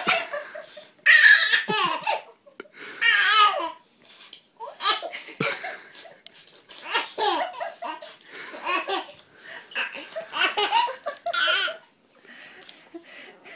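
Baby laughing in repeated short, high-pitched bursts, about one every second, with brief pauses between.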